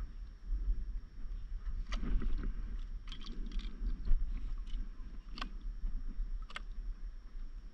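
Scattered sharp knocks and taps of a paddle and gear being handled on an inflatable paddleboard, about six in all, over a steady low rumble.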